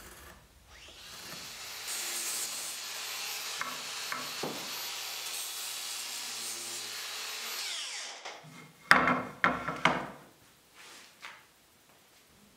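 Electric woodworking power tool spinning up and cutting wood for about six seconds with a high whine, then winding down. A few loud knocks follow.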